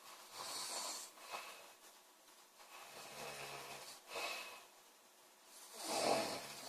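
A young woman snoring in her sleep: three slow breaths, the middle one with a low buzz, and the loudest, breathiest snore near the end.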